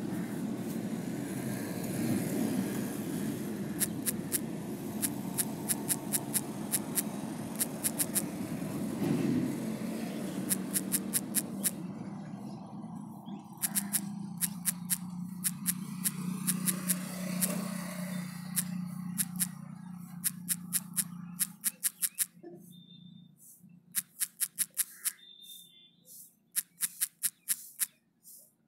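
Runs of quick, sharp clicks from typing on a smartphone's on-screen keyboard, coming in bursts as words are typed. Under them a steady low rumble fades away about two-thirds of the way through.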